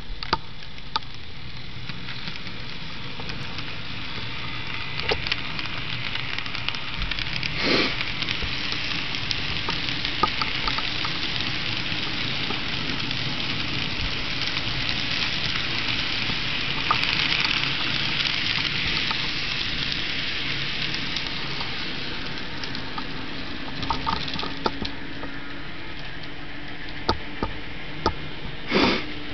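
N scale model train running on the layout track: a steady hissing rattle of small wheels rolling over the rails, with scattered clicks, louder for a while in the middle as the cars pass close.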